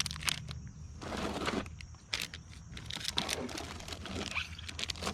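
Plastic bags of soft-plastic fishing baits being handled, crinkling and rustling with scattered light clicks.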